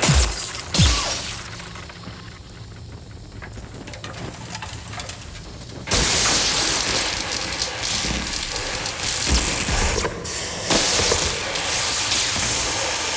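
Sci-fi film sound effects from a crashed-spaceship scene: two low booming impacts at the start, a quieter stretch of mechanical texture, then a sudden loud hissing rush about six seconds in. The hiss breaks off briefly near ten seconds and comes back.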